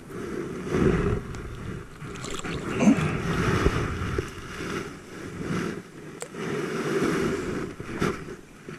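Irregular splashing and rustling as a hooked largemouth bass is pulled out of the shallows and lifted onto the bank, with clothing brushing against the camera.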